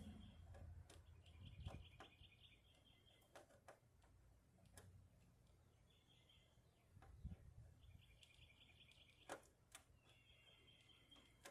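Near silence with scattered faint clicks and taps, with a bird chirping in quick repeated trills in the background.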